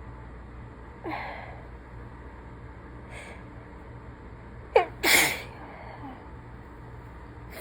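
A woman who is sick sneezing once, about five seconds in: a sharp voiced catch of breath followed straight away by a loud burst, the loudest sound here. A shorter falling voiced breath comes about a second in, with faint sniffs between.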